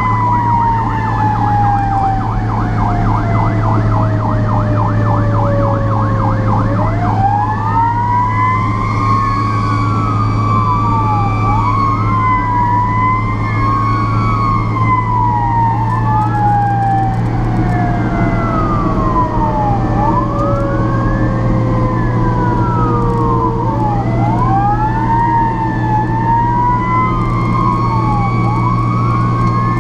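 Fire truck sirens on an emergency run, heard over the steady drone of the truck's engine. One siren moves from a fast warbling yelp into a rising-and-falling wail. A second tone falls slowly for several seconds and then climbs back quickly, twice.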